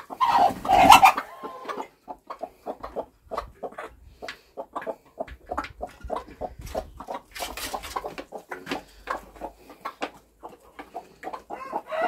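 Hens clucking and pecking feed from a metal bowl: a rapid, uneven run of short pecking clicks and clucks, with a louder burst of calling in the first second or so.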